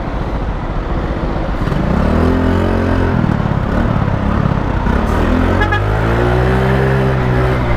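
Small scooter engine accelerating through traffic, its pitch rising twice, once about two seconds in and again near the end, over steady road and wind noise.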